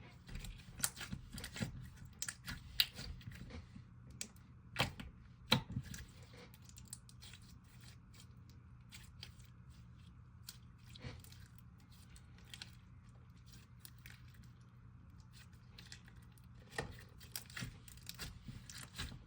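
Clear slime with rock-like pieces inside being stretched, pressed and clicked by hand, making irregular sticky clicks and small crunchy pops. They come thickest in the first few seconds and again near the end.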